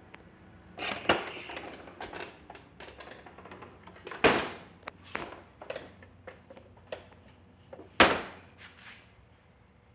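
Plastic clicks and knocks from handling the document feeder of a Canon imageRUNNER Advance C2030 copier, with three louder knocks about a second in, around four seconds in, and at eight seconds, and lighter clicks between them.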